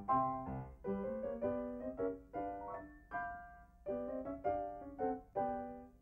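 Piano music: a run of struck chords, one after another, with a single held note and a brief lull around the middle.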